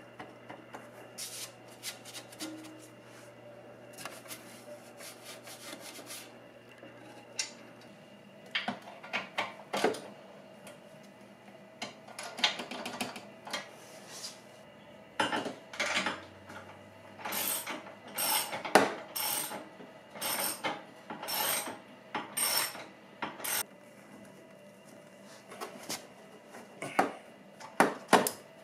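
Socket ratchet wrench clicking in short bursts of strokes as a skid plate's mounting bolt is tightened down. The bursts start a few seconds in and come about once a second later on.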